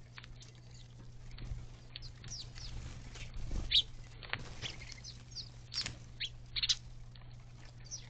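A flock of house sparrows chirping: many short, sharp chirps coming irregularly, over a steady low hum.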